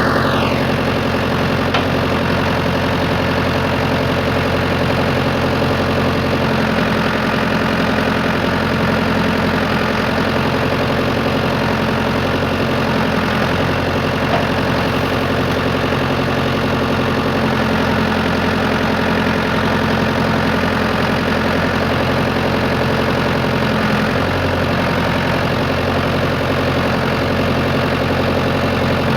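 Ford 655A backhoe's four-cylinder engine running steadily, a constant drone with no change in speed. A high whine slides down and fades out in the first second.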